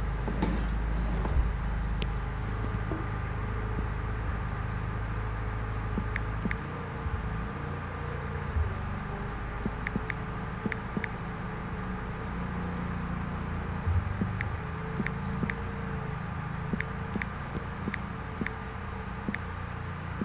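Oil-free piston air compressor running with a steady low hum, dropping in level about six seconds in. Faint short ticks repeat about twice a second through the second half.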